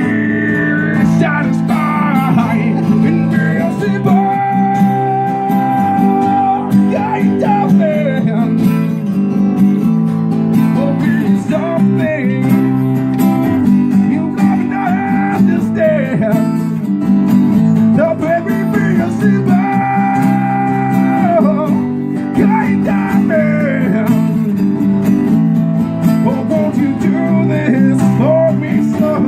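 Two acoustic guitars played live, strummed chords with a melody line over them that holds a long note about four seconds in and again near the twenty-second mark.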